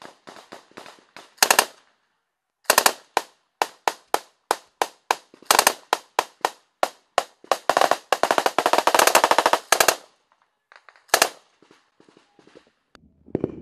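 Gunfire in a firefight: a steady run of single rifle shots, some close and loud and others fainter, then a rapid burst of automatic fire about eight seconds in lasting about two seconds.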